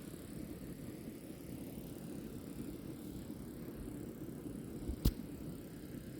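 Steady, low rumbling outdoor ambience of a nature field recording, with a single sharp click about five seconds in.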